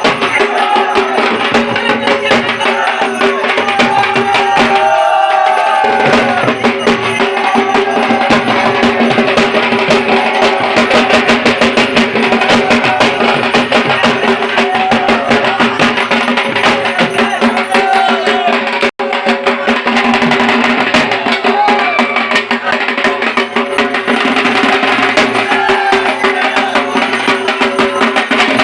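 Dhak, the large Bengali barrel drum, played in a fast, dense stream of stick strokes, with steady pitched tones beneath. The sound cuts out for an instant about two-thirds of the way through.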